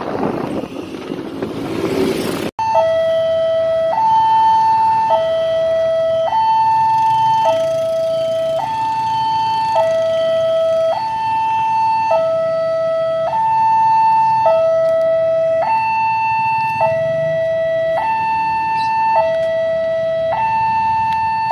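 Railway level-crossing warning alarm sounding: an electronic two-tone signal alternating between a lower and a higher note, each held about a second, repeating steadily while the crossing is closed for an approaching train. Wind buffets the microphone for the first couple of seconds before the alarm comes in.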